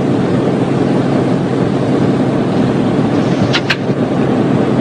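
Boeing B-17 Flying Fortress's four Wright Cyclone nine-cylinder radial engines running with a steady drone, held on the runway before takeoff. Two short sharp clicks sound about three and a half seconds in.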